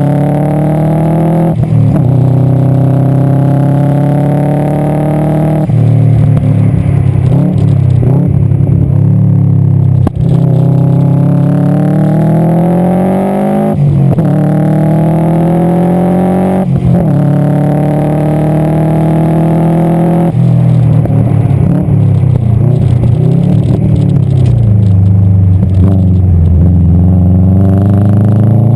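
Subaru Impreza STI GC8's turbocharged flat-four pulling hard through the gears on track, running with an exhaust leak. Its pitch climbs, then drops sharply at each shift, about six shifts in all. Two stretches off the throttle, in the middle and near the end, are full of crackles and pops from the exhaust.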